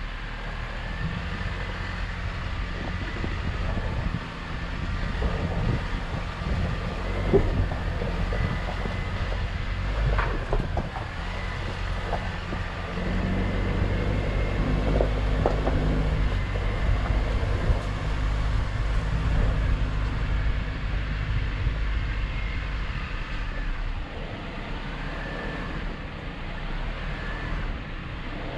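Jeep Wrangler JL crawling over a rocky off-road trail: the engine runs low and steady while the tyres grind over loose rock, with a few sharp knocks in the middle.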